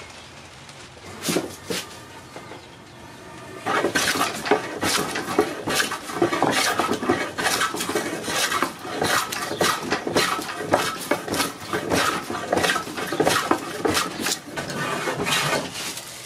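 Hand plane taking quick, repeated cutting strokes along a wooden post, each stroke shearing off a shaving. The strokes start about four seconds in, after two brief scrapes, and keep on until near the end.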